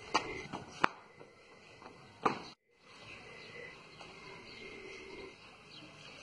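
Faint outdoor background with two sharp knocks about a second and a half apart early on, then a brief moment of total silence at an edit cut, after which only the faint background remains.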